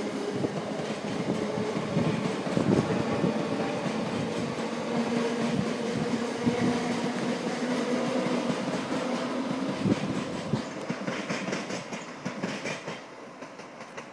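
Class 365 electric multiple unit pulling away from the station, with a steady hum and rumble and its wheels clicking over the rail joints. The sound fades near the end as the train draws off down the line.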